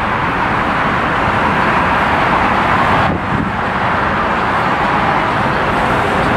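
Steady rush of road traffic noise from passing cars, with a brief lull about three seconds in.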